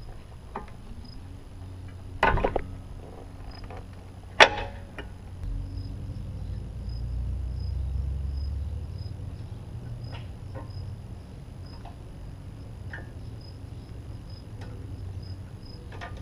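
Metal brake parts clanking and clicking as a brake caliper with new pads is worked back over the rotor by hand. There is a sharp clank about two seconds in and a louder one about four seconds in, then light scattered clicks over a low rumble.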